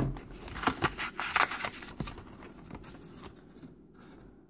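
Hands handling kitchen utensils and ingredient containers on a counter close to the microphone: a quick run of clicks, knocks and rustling that thins out near the end.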